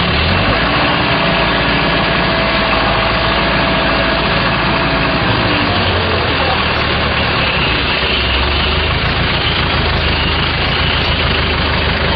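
Forklift engine running steadily as it lifts a load, its note shifting about five seconds in and again around eight seconds.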